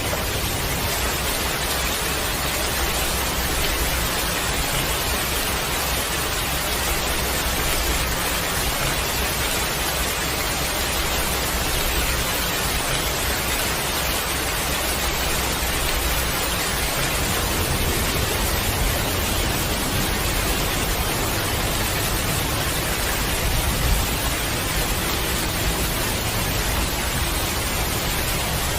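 Heavy, steady rain pouring down, an even hiss with a low rumble underneath.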